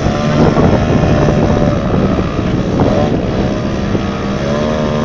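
Engine and propeller of a 42% scale aerobatic RC plane hovering nose-up, the engine note rising and falling as the throttle is worked.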